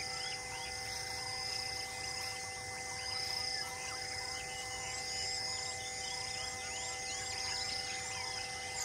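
Outdoor ambience of many small birds chirping and insects trilling, one insect buzz switching on and off every second or so. Steady sustained tones run underneath.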